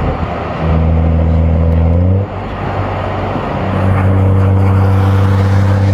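BMW M235i's turbocharged straight-six engine droning at steady revs, heard from inside the cabin over road noise. The drone drops out about two seconds in and comes back a second or so later.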